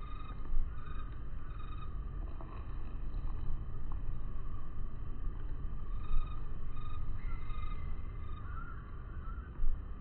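Outdoor ambience: a steady low rumble with faint, repeating high calls in the background, broken by three short thumps, about half a second in, about six seconds in, and near the end.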